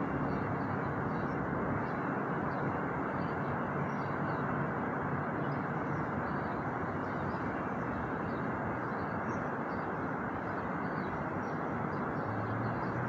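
Steady outdoor ambient noise, with faint short high chirps scattered throughout.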